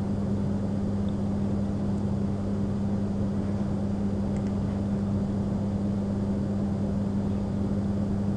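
Steady low electrical hum with hiss: the recording's constant background noise, with no other sound.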